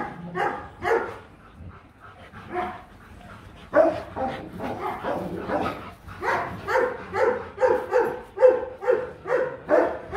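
Rottweiler barking in short barks: a few spaced barks at first, then a steady run of about two a second from a little before halfway.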